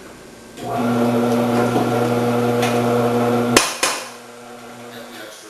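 Omcan HLC 300 vegetable processor motor starts and runs with a steady hum for about three seconds, working through the leftover cheese just thrown back in. A sharp click follows, and the hum then carries on more quietly and stops about five seconds in as the motor spins down.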